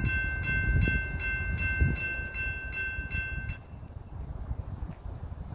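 A passing train rumbles low while a high, rhythmic ringing, most like a railroad grade-crossing bell, pulses about two to three times a second and stops abruptly about three and a half seconds in. The train rumble then fades.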